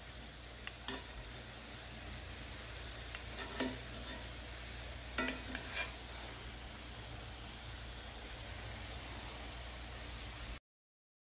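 Ribeye steaks sizzling in a cast-iron skillet: a steady frying hiss, with a few sharp clicks in the first half. The sound cuts off suddenly near the end.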